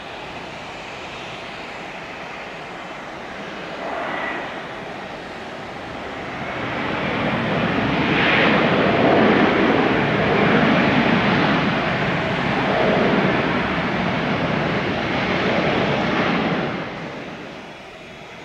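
Airliner engine noise: a rushing roar that swells from about six seconds in, stays loud for about ten seconds, then drops off sharply near the end.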